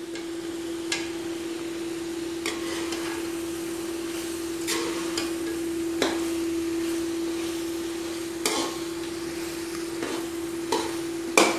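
A slotted metal spoon stirring thick curry gravy in an aluminium pot, with a few short knocks and scrapes of the spoon against the pot. A steady low hum runs underneath.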